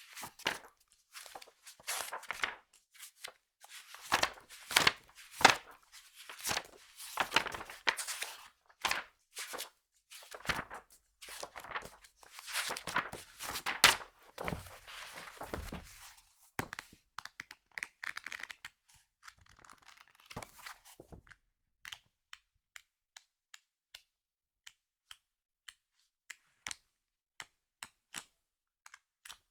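Magazine pages being flipped fast, a dense run of paper swishes and snaps. About two-thirds of the way through this gives way to a series of short, evenly spaced clicks, about two a second.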